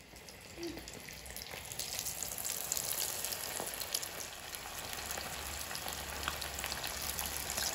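Spice-marinated prawns deep-frying in hot oil in a kadai: a steady bubbling sizzle full of fine crackles, growing louder over the first two seconds.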